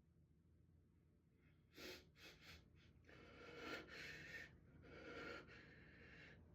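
A person's faint breathing during a sneezing fit: three quick sniffs a little under two seconds in, then a few long, gasping breaths.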